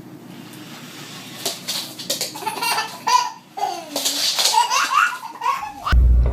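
Person laughing in high-pitched, broken fits, in a small room.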